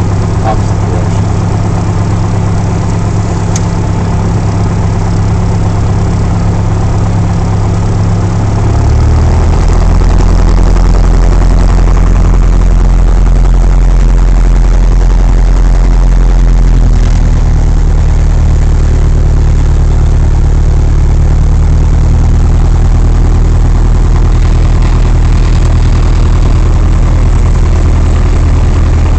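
Piper Archer's four-cylinder Lycoming O-360 engine and propeller during the pre-takeoff runup, heard from inside the cockpit. It runs steadily, grows louder about nine seconds in as power is brought up for the runup checks, and its note changes again around seventeen seconds in.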